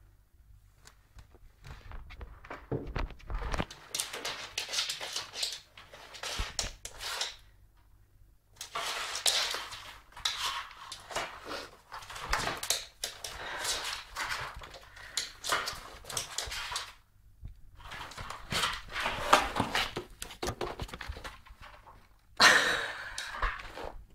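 Cardboard box rustling and scraping over a wooden floor in irregular bursts as a cat pushes and wriggles into it and shoves it along, with brief pauses.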